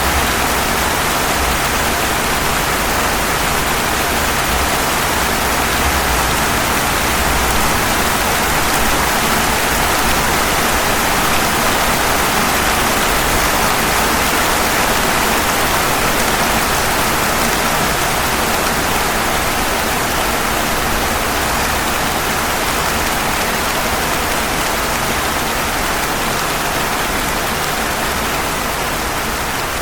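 Rain falling steadily on pavement: a dense, even hiss.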